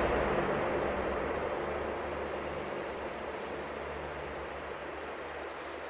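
Ambient electronic soundscape: a dense noisy wash over a steady low drone, with a faint sweeping tone high up, fading steadily down.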